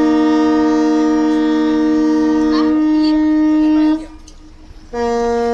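Cruise ship's multi-tone horn sounding a long, loud chord of several steady notes, one of which drops out a little before the blast stops about four seconds in. After a pause of about a second, a second blast begins near the end.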